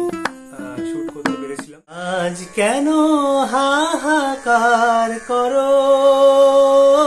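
A man sings long, drawn-out notes without words, wavering in pitch, then holds one steady note to the end. It opens with a few plucked string notes that stop just before the singing starts.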